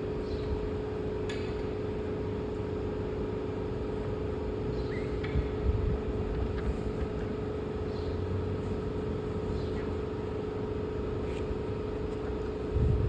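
Steady machine hum with a constant mid-pitched drone, with a few faint clicks over it.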